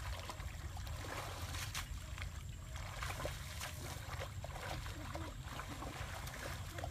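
Trickling water and small irregular splashes, over a steady low rumble.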